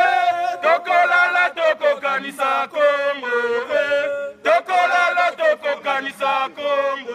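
Demonstrators singing a protest chant, a man's voice carrying the melody in long held phrases, with a short break about four seconds in.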